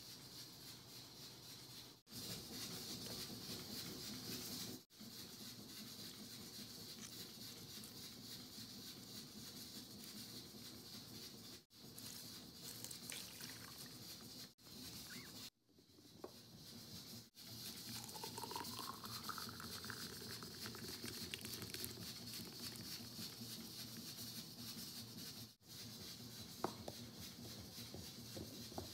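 Quiet, steady background hiss, with a few faint sharp taps near the end.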